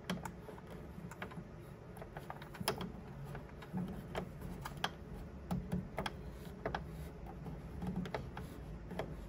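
Fingers pressing and smoothing Teflon tape onto the blocker in a Bambu Lab 3D printer's poop chute, making irregular small clicks and taps, a few each second.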